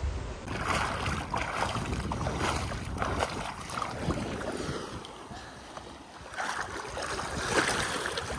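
Wind buffeting the microphone over sea water splashing and rushing past a moving boat, in irregular gusts that ease off briefly a little past the middle.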